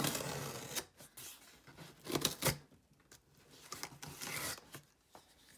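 A cardboard shipping box being cut and torn open: scraping and tearing of tape and cardboard, with a few sharp rips a second or two in.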